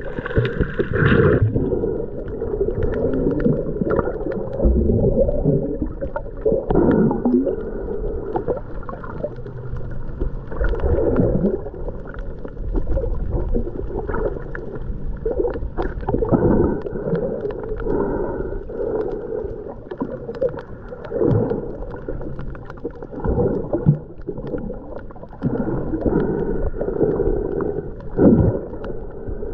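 Muffled water sloshing and gurgling, as heard with the microphone underwater, with a swoosh every two to three seconds.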